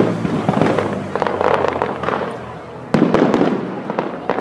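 Aerial firework shells bursting overhead with crackling stars. One burst comes at the start and a second, sudden loud one about three seconds in.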